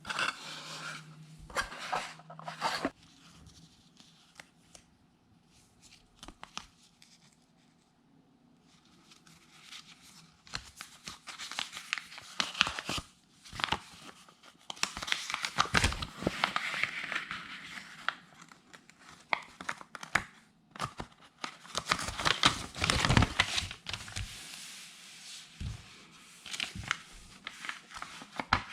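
Packaging of a guitar effects pedal being handled and opened: crinkling, rustling and tearing, with small clicks. It comes in uneven bursts, quiet for several seconds after the first burst and densest in the middle and again near the end.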